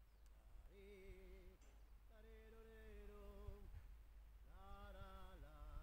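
Faint wordless singing: a voice holds long notes with a slight waver in three phrases, about a second in, from two to nearly four seconds, and again near the end, over a low rumble.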